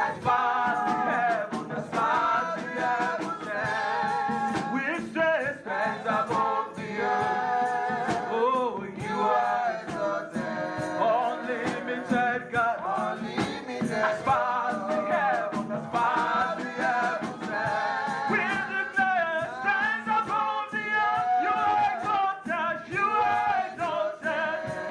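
Gospel worship singing: voices sing a praise song over instrumental accompaniment with percussion.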